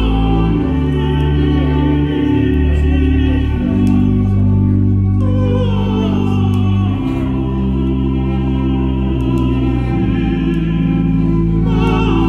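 Slow recorded music played over a pair of Acora floor-standing loudspeakers. Deep bass notes are held for a second or two each, under a high line with wide vibrato that enters about five seconds in and again near the end.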